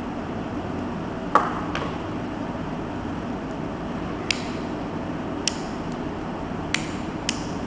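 Sharp metallic clicks from the small butane lighter of a multi-function hiking knife being worked by hand: one loud click with a brief ring about a second and a half in, a fainter one just after, then four more clicks spaced about a second apart, over a steady hiss.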